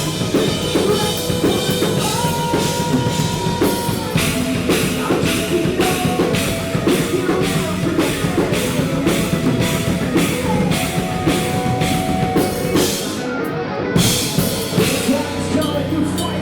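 A rock band playing an instrumental passage: a drum kit pounding a fast, steady beat under distorted guitars and bass, with a short break in the drumming about thirteen seconds in.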